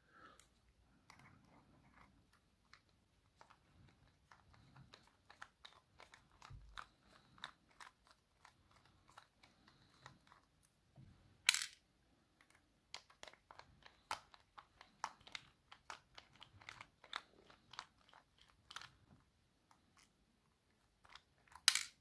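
Faint scattered clicks and ticks of small metal parts being handled while a bit screwdriver backs out the two small screws on the face of an ASSA 600 lock cylinder. A sharper click comes about halfway through and another near the end.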